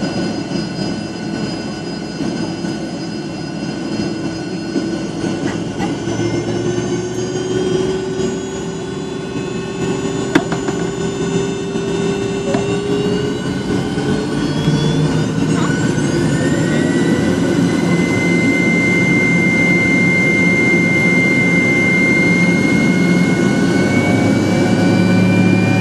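Cabin sound of a Fokker 70's two rear-mounted Rolls-Royce Tay turbofans: a steady whine over a low hum at low power. About sixteen seconds in, the engines spool up, their whine rising in pitch and growing louder as thrust is set for takeoff. A couple of light knocks come before the spool-up.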